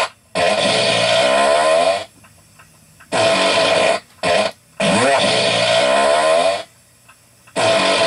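A run of farts: several long, pitched blasts of one to two seconds each, with short pauses between, the pitch wavering and sliding within each one.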